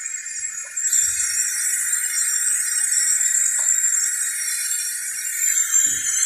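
Pressurised nitrogen hissing steadily as it is vented from a refrigeration system after its pressure test, ahead of vacuum evacuation; the hiss grows fuller about a second in. A few faint soft knocks sound beneath it.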